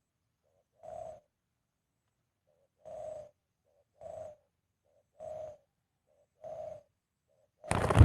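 Captive decoy dove cooing: short, low, hollow coo notes repeated about once a second, five in all. Near the end a sudden loud burst of noise cuts in over the calls.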